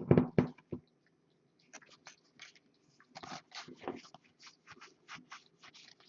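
Trading cards being handled: a string of short, irregular rustles and clicks, about two or three a second, after a brief mumble of voice at the start.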